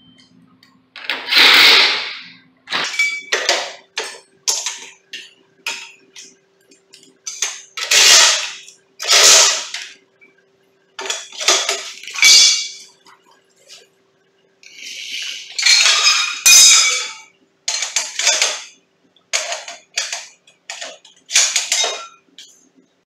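Metal clattering and rattling in a string of short, irregular bursts: steel garage door opener rail sections and brackets being handled and fitted together on a concrete floor.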